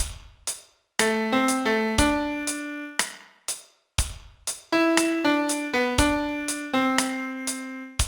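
A piano plays a song's melody one note at a time, each note ringing and fading, over a steady beat of short hits about twice a second. The piano stops for a moment about three seconds in, leaving only the beat, then comes back.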